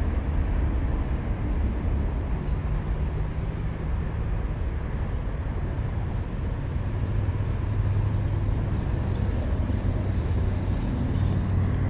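A motor engine running steadily at a low pitch, over a constant rumble of background noise.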